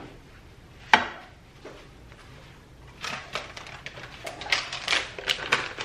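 A single sharp clack about a second in, as a kitchen utensil is set down. From about three seconds on comes a run of rapid crinkling from a plastic food pouch being handled.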